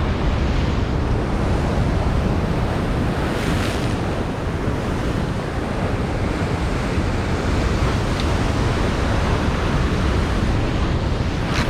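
Ocean surf washing on the shore, with wind buffeting the microphone.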